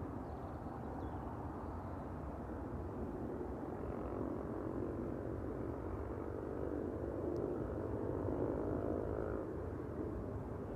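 Boeing 747-400's four jet engines at climb power, a steady distant roar with a faint hum of tones in it, swelling slightly near the end as the airliner climbs away.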